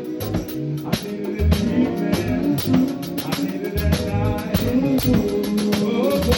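Live band music: a drum kit keeping a steady beat under guitar and other pitched instrument lines.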